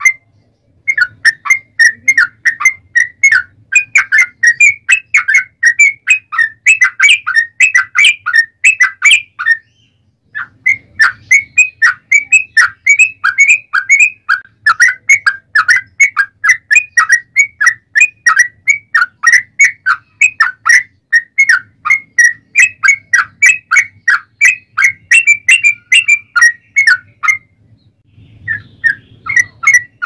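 Yellow-vented bulbul (trucukan) singing long runs of fast, bubbly chirping notes, several a second. The runs break off briefly twice, about ten seconds in and near the end.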